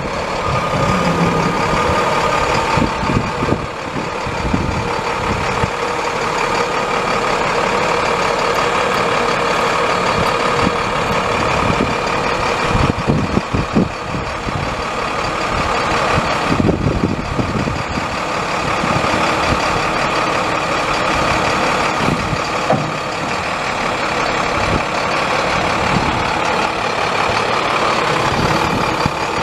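International MaxxForce 9.3-litre inline-six turbo diesel of a heavy digger derrick truck running at a steady idle.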